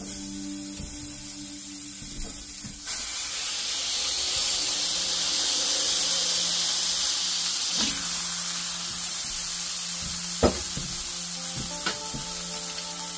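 Food sizzling on a hot Stargazer cast iron skillet, the sizzle growing louder about three seconds in. A few sharp knocks come later, the loudest about ten seconds in.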